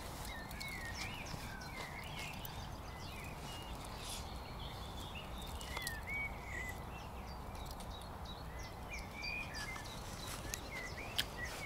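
Small birds chirping and twittering on and off over a steady low outdoor rumble, with a few faint clicks.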